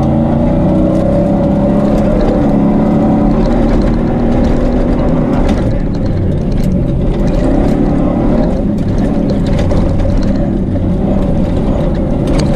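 Off-road rally pickup's engine running hard at speed, heard from inside the cabin, its pitch rising and falling with the throttle. Tyre and track noise runs underneath, with scattered knocks and rattles from the rough desert surface.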